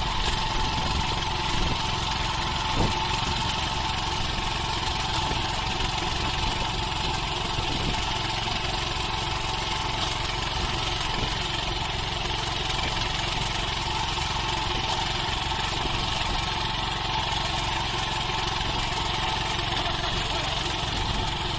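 Small engine of a riding-type rice transplanter running steadily while the machine travels through a muddy paddy planting seedlings.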